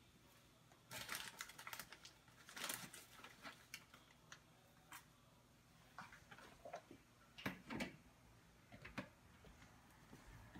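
Faint, scattered clicks, taps and rustles of hands handling ingredients and containers at a kitchen counter, ending with a blender jar's lid being fitted.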